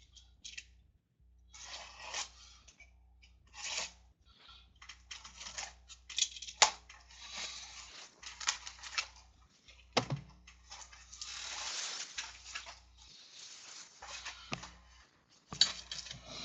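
Trading cards and their packaging being handled: crinkling and tearing of wrappers and sliding of cards, with scattered sharp clicks and one heavier knock about ten seconds in.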